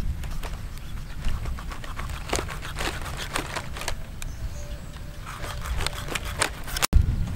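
A knife cutting and working through a stingray's flesh, with irregular short clicks and crackles from the blade, the wet flesh and the dry palm leaves underneath, over a low steady rumble.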